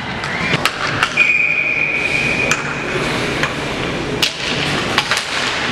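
Ice hockey rink noise: a scatter of sharp knocks and clacks over a noisy background, with a high steady tone lasting about a second and a half about a second in.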